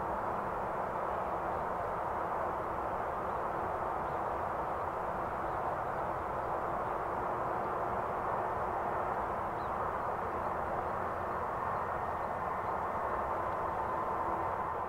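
Jet engines of a Xian Y-20A transport, four turbofans, running steadily at a distance with a continuous rushing noise. A faint whine emerges and rises slightly near the end.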